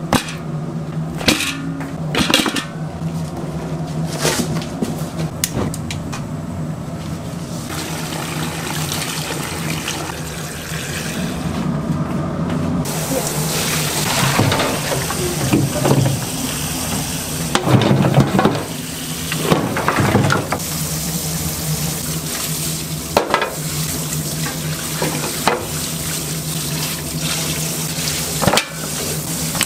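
Tap water running hard from a spray faucet into a stainless-steel sink as boiled beef bones are rinsed by hand, with splashing, over a steady low hum. Scattered sharp knocks of bones against metal come before and after the rinsing.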